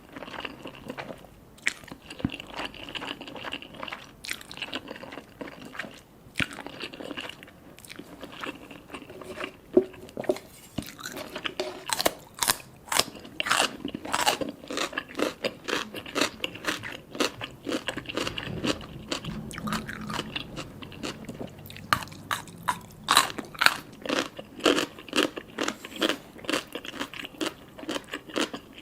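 Close-miked eating: a person chewing and biting food, a run of sharp wet mouth clicks and crunches, sparse at first and coming thick and fast from about twelve seconds in.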